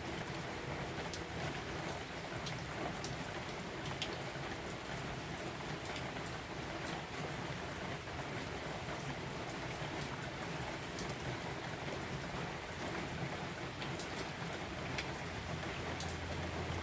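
Steady rain falling, with scattered sharp clicks over it.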